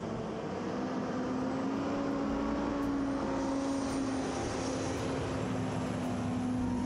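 Semi tractor-trailer's diesel engine running as the truck rolls slowly through a turn, a steady drone with a low hum.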